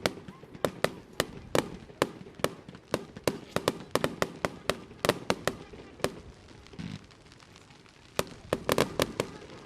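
Aerial fireworks bursting in quick succession: a string of sharp bangs, several a second. A brief lull comes about seven seconds in, then a tight cluster of bangs near the end.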